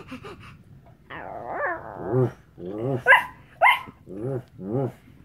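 A person imitating a big dog: a drawn-out growl, then a string of about six short barks.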